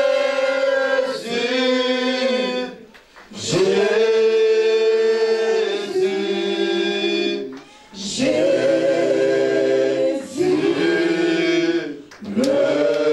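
Worship song sung by a man into a microphone, with other voices joining in. The singing goes in long held phrases of about three to four seconds, with short breaks for breath between them.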